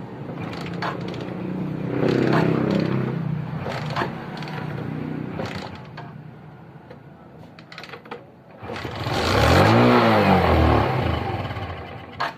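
Suzuki Smash 115's single-cylinder four-stroke engine running on choke, revved a little about two seconds in, sagging near eight seconds, then revved up and back down once near the end. It is a brand-new engine being warmed up because it stalls when cold, its fuel draw still weak.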